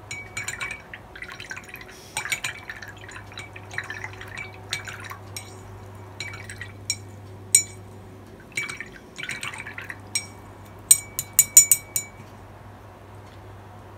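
Paintbrush swished in a clear jar of rinse water, with watery swirling and splashing and sharp clinks as the brush knocks against the jar. Near the end comes a quick run of about six taps, the brush knocked against the jar.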